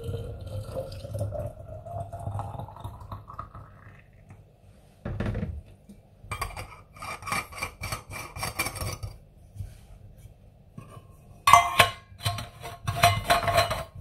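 Metal objects clinking and rattling in two bouts, with a ringing metallic tone through the clatter. A single dull thump comes about five seconds in, before the first bout.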